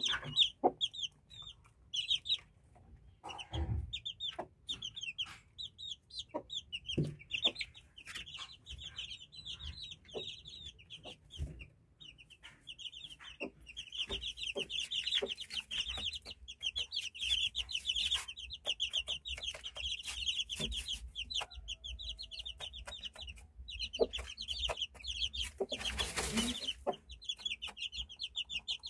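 Newly hatched Índio game-fowl chicks peeping continuously in rapid, high, short chirps, over a mother hen's low clucks and scattered ticks and knocks from pecking on the floor. A brief rustling burst comes a few seconds before the end.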